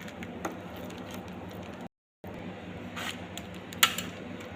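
Pizza sauce being spread on a tortilla with a spoon: faint scraping and a few light clicks, the sharpest near the end, over a steady low hum. The sound cuts out completely for a moment about two seconds in.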